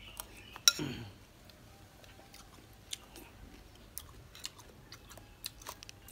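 Person chewing a mouthful of sweet corn kernels soaked in milk, with scattered sharp clicks of a metal spoon against a glass bowl, the loudest about a second in.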